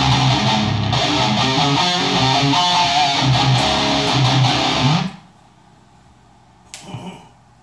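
Distorted electric guitar riffing, a 1991 ESP M-II played through a Randall RG3003H 300-watt solid-state head and Mesa Rectifier 4x12 cabinet. The playing stops abruptly about five seconds in, and a brief handling noise comes near the end.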